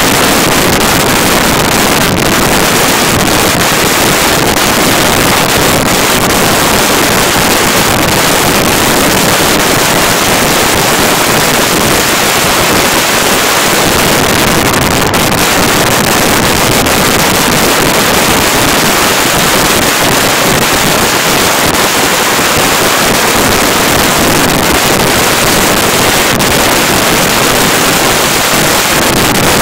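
Loud, steady wind rushing over the microphone of a camera on a motorcycle moving at road speed, a constant roar that covers the engine and tyre sound.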